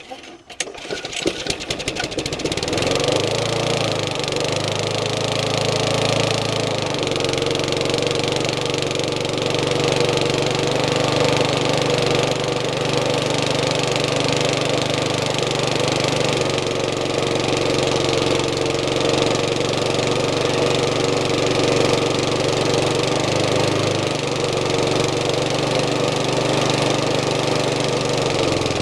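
Briggs and Stratton lawnmower engine sputtering and catching in the first couple of seconds, then running steadily. It is burning off oil that got into the fuel and past the rings over winter.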